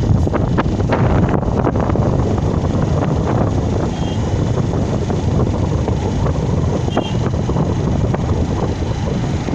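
Wind buffeting the microphone over the steady running of a moving vehicle, with a brief high chirp about four seconds in and another about three seconds later.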